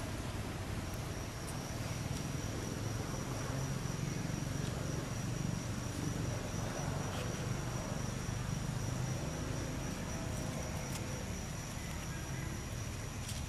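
Steady high-pitched insect buzzing over a continuous low rumble, with a few faint clicks.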